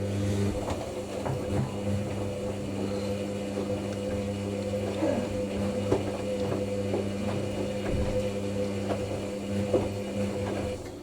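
Hoover NeXtra HNL3146 washing machine tumbling its load in the wash, its drum motor humming steadily with scattered light knocks from the drum. This is the fast-tumble stage of the Synthetics 50 °C wash, with the water heating.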